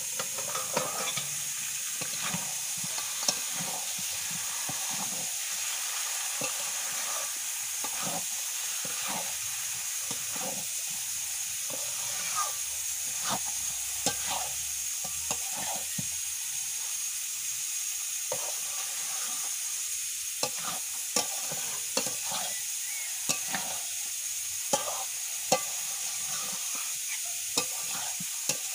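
Mutton pieces and potatoes sizzling in oil in a steel pan as they are slow-fried in spice paste for kosha. A metal spatula scrapes and clinks against the pan as the meat is stirred, sharp clicks over a steady sizzle, more frequent in the second half.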